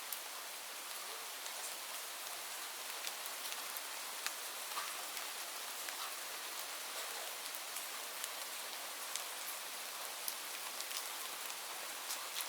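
Steady rain falling, a constant hiss with many individual drops ticking on a hard surface.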